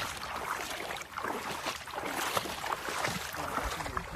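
Stream water splashing and sloshing irregularly as someone wades through it.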